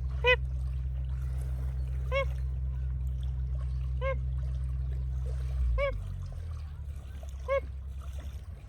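A bird giving a short, pitched call five times, about every two seconds, each note rising then falling. Under it is a steady low rumble that drops away about six seconds in.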